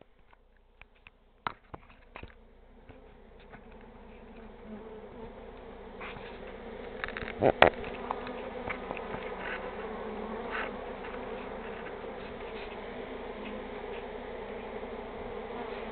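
Swarm of honeybees in flight, a dense steady buzzing hum that builds from faint over the first few seconds and then holds, from a stirred-up colony in the air. A brief loud knock comes about halfway through.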